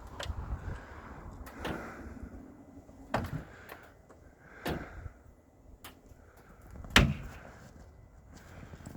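Hand tools knocking and clanking against the pickup's steel wheel and jack while the tire is being changed: a string of sharp knocks roughly every second and a half, the loudest about seven seconds in.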